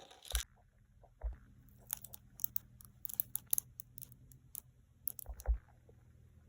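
Small plastic packaging being handled: scattered light clicks and ticks, with a few soft thumps.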